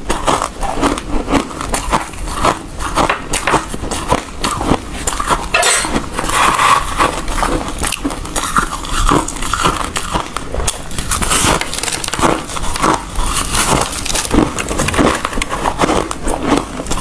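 A person biting and chewing hard ice close to the microphone: loud, crisp crunches several times a second, with no pause.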